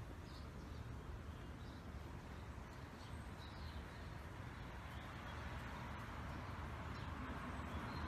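Outdoor ambience: a steady low rumble and hiss, like wind or distant traffic, with a few faint, short high chirps in the first half.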